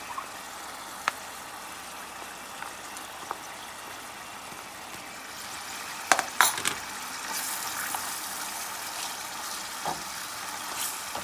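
Shrimp sizzling steadily in hot oil in a stainless steel frying pan. About six seconds in there is a cluster of sharp knocks as sliced onions are tipped in from a plate, then a wooden spoon stirs them through the sizzling pan.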